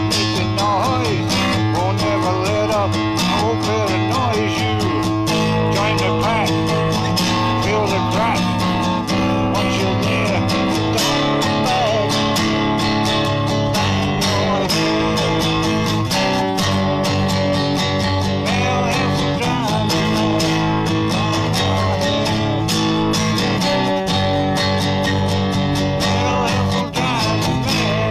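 Acoustic guitar being strummed, chords played continuously.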